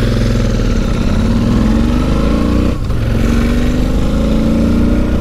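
Royal Enfield Interceptor 650's parallel-twin engine accelerating, heard from the sidecar right beside it. The revs climb, drop briefly at a gear change a little under three seconds in, and climb again.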